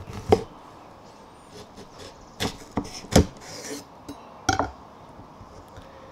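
Chef's knife cutting through a kiwano (horned melon) on a wooden cutting board, with about half a dozen sharp knocks and clinks as the blade and the fruit strike the board.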